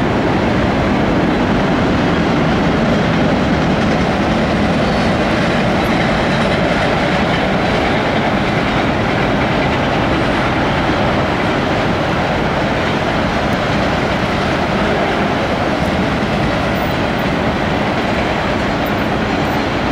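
Freight train of autorack cars rolling past: a steady, loud noise of steel wheels running on the rails.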